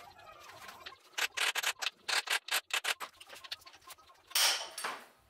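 A hand tool working on the motorcycle's rear suspension fasteners: a rapid run of rasping, scraping strokes for about two seconds, then one longer, louder rasp near the end.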